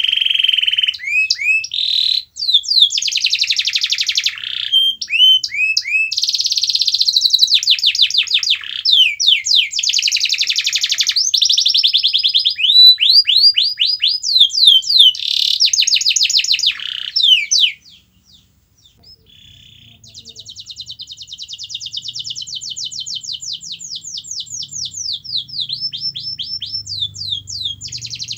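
Domestic canary singing: loud, fast rolling trills and runs of quickly repeated chirps. It breaks off about two-thirds of the way through, then resumes more quietly with a rapid run of repeated notes.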